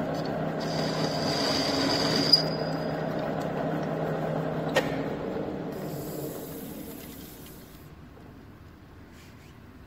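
Centre lathe running with a steel bar turning between centres: a steady gear and motor hum, with a thin high whine for about a second and a half near the start. After a click about halfway through, the running sound slowly dies away as the spindle coasts to a stop.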